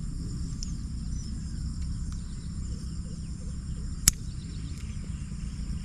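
Steady high-pitched chirring of insects over a low rumble of wind on the microphone, with a single sharp click about four seconds in.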